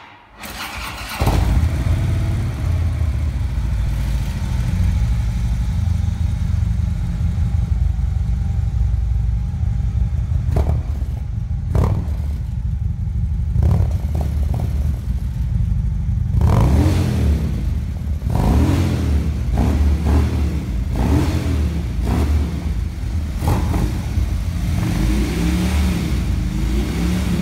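Harley-Davidson Tri Glide Ultra trike's V-twin running through Screamin' Eagle Street Cannon slip-on mufflers: a steady idle for the first half, then revved in repeated blips of the throttle from about 16 seconds on.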